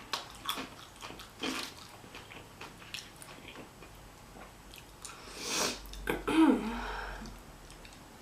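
Close-miked chewing and mouth sounds of a person eating a Chipotle burrito bowl: soft wet clicks and smacks throughout, with a louder, longer mouth sound about five and a half seconds in.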